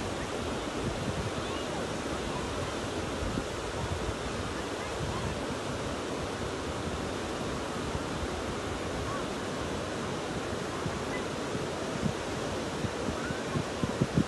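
Surf breaking and washing up a sandy shore, a steady rushing noise, with wind buffeting the microphone in a few gusts near the end.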